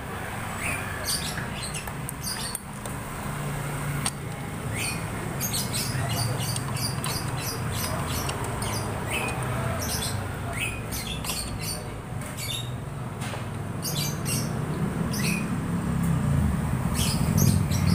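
Birds chirping again and again over a steady low rumble that grows louder toward the end.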